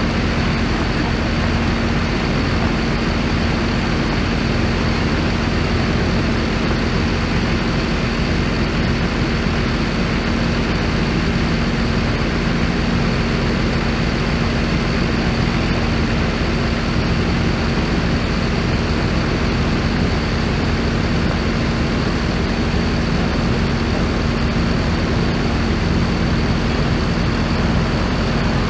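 Heavy vehicle engine running steadily at idle: a constant hum with a thin high whine above it.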